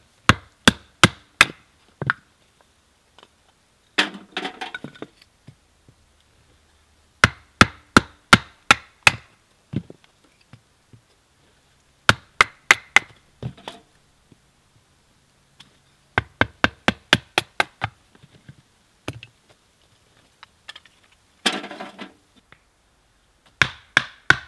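A knife being batoned through a stick of firewood to split kindling: sharp wooden knocks of the baton striking the knife, in runs of four to six blows about three a second, with pauses between runs. Twice, between runs, there is a longer, rougher burst of sound.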